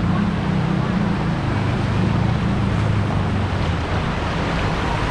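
Floodwater rushing steadily along a street, with a vehicle engine's low hum running underneath.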